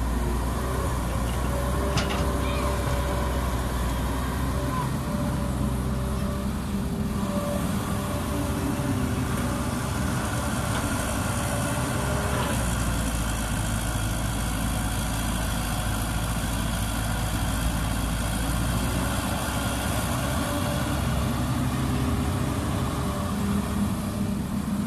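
Caterpillar 312B hydraulic excavator's diesel engine running steadily under working load as it dumps, swings and digs, with a steady hum over a deep rumble that shifts a little as the work changes. A single sharp tick about two seconds in.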